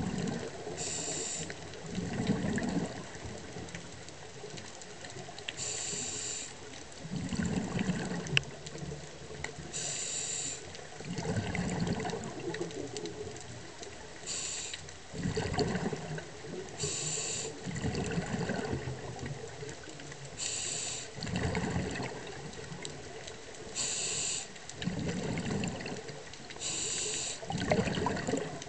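Scuba diver breathing through a regulator underwater: a short hiss on each inhale, then a burst of exhaust bubbles on each exhale, about one breath every three to four seconds.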